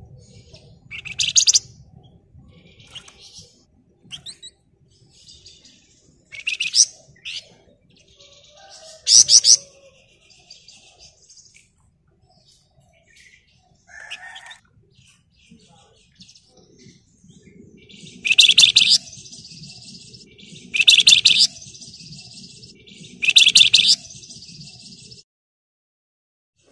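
Flamboyan songbird (wergan Jawa) singing in short, loud, high bursts of fast rattling trills, with softer chattering notes in between. The three closely spaced bursts in the second half are the dense 'ngebren' rattle.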